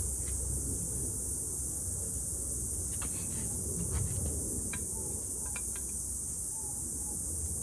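Steady high-pitched hiss over a low hum, with a few faint light clicks and taps partway through.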